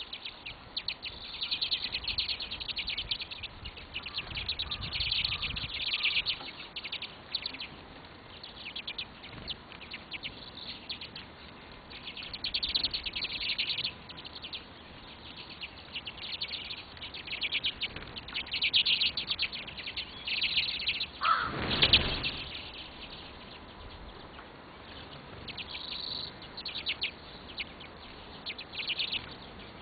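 Small birds chirping and twittering in rapid, repeated bursts of high, fast chatter. About 21 seconds in there is one brief, louder rush of sound with a deep thump.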